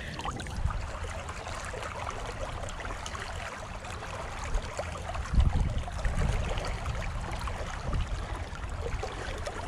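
Shallow river current flowing and rippling close to the microphone, with a few low rumbles on the microphone around the middle.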